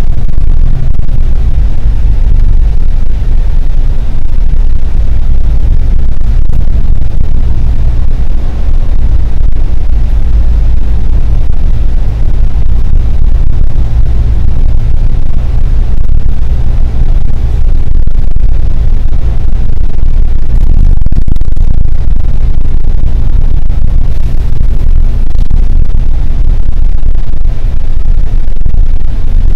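Loud, steady low rumble of a city bus on the move, heard from on board.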